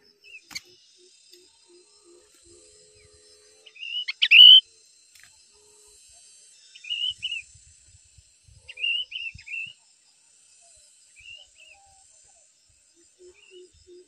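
Short chirping calls from birds at a bulbul's nest with newly hatched chicks being fed, loudest about four seconds in and coming in clusters around seven and nine seconds. A faint low note repeats several times a second in the background at the start and again near the end.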